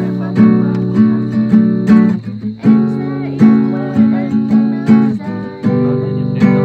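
Acoustic guitar strumming chords in a steady rhythm, a stroke about every half second.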